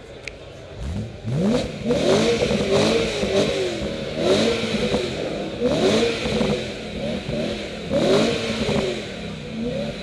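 BMW M3 engine revved hard through its exhaust in a series of blips, each rising and falling in pitch, starting about a second in and repeating roughly every second or so.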